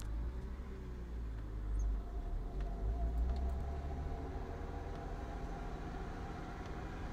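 BMW E36 325i driving: a low rumble of engine and road, joined about three seconds in by a thin steady whistle. This is the metallic scraping-whistling sound from the passenger-side wheel that the owner has not traced; the brakes show no debris, though the rotor turns a little tight at one point.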